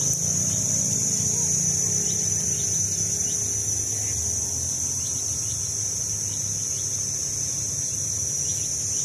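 Steady high-pitched chorus of insects, unbroken throughout, with a low hum under it that fades out over the first few seconds.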